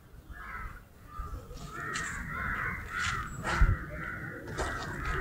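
Crows cawing over and over, the harsh calls coming in quick succession and overlapping from about a second and a half in, over low wind rumble with a few sharp knocks on the microphone.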